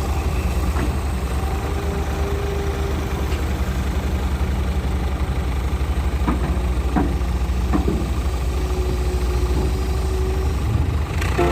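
Heavy construction machine's diesel engine running steadily with a low throb, with a few short sharp knocks, three of them close together a little past the middle.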